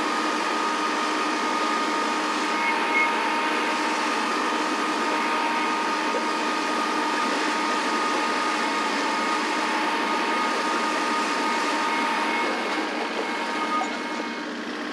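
Kubota compact tractor's diesel engine running steadily as it drags a grading scraper over a gravel driveway, a steady drone with a constant whine over a noisy grinding wash of gravel. It eases off slightly near the end.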